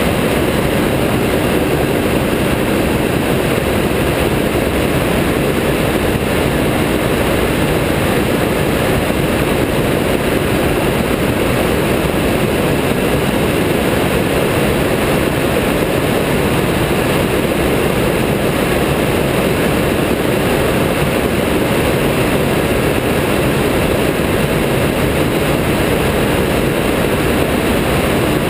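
Ultralight trike's pusher engine and propeller running steadily in cruise flight, mixed with rushing wind on the open airframe.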